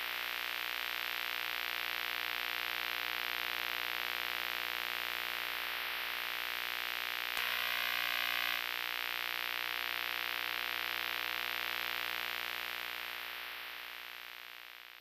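Electronic glitch-effect sound for a channel-logo outro: a steady hiss of static over a synthesizer drone, with a brief rougher distortion burst about halfway through, fading out near the end.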